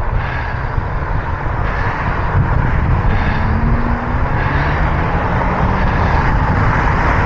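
Wind rushing over the microphone of a moving bicycle, mixed with car traffic passing close by; an engine's tone rises in pitch about three seconds in.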